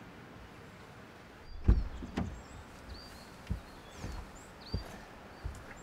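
Someone climbing into the driver's seat of a Škoda Superb Combi: a few dull thumps and rustles from body and seat, then the driver's door shutting with a heavy thud at the very end. Birds chirp faintly outside.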